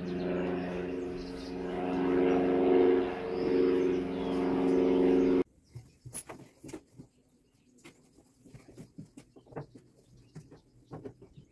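A steady hum of several pitches that swells and fades, cutting off abruptly about five seconds in. After that, faint taps and scattered bird chirps.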